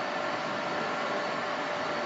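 Steady factory-hall noise: an even rush with a faint steady hum.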